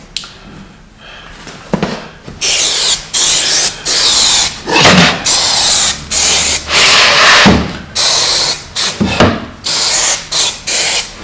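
Aerosol can of spray contact adhesive hissing in a rapid series of short spray bursts, starting about two seconds in, as it coats a cabinet end panel ready for wood veneer.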